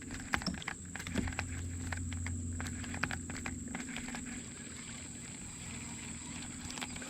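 Low steady hum of a small boat motor, strongest in the first few seconds and then easing off, with scattered light clicks and taps throughout.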